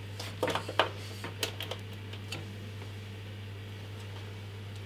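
A few light clicks and taps in the first two seconds or so from hands handling the open PC case and its parts, over a steady low hum.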